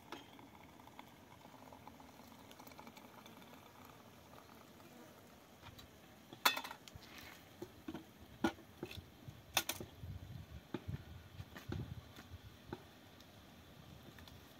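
Metal cooking pots, lids and utensils clinking and knocking, several sharp strikes starting about halfway through with a few duller thumps among them, over a faint steady background noise.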